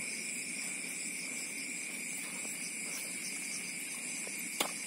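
Night insect chorus of a rice paddy: a steady, high, continuous trilling. One sharp click sounds near the end.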